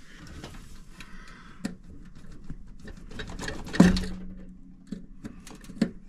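Small clicks and handling noise as a wire connector is pulled off and pushed back onto a furnace's main limit switch, to make the control board show its stored fault code. About four seconds in comes one louder click followed by a short low hum.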